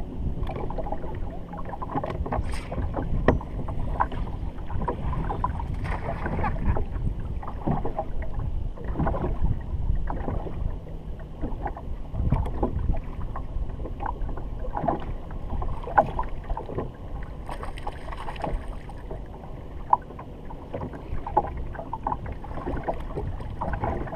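Choppy lake water slapping and splashing against the hull of a bass boat, with irregular knocks over a steady rush of wind on the microphone.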